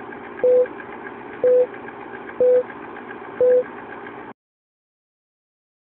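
Film-leader countdown sound effect: a steady rattling projector noise with about four ticks a second, and a short beep once a second, four beeps in all. It cuts off suddenly about four seconds in.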